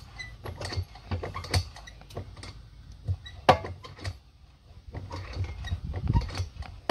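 Irregular mechanical clicks and knocks, the loudest a sharp knock about three and a half seconds in, over a faint low hum.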